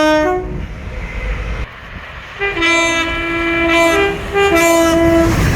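Two-tone train horn: the end of one blast in the first half-second over the low rumble of the train, then two more high-then-low blasts starting about two and a half seconds in.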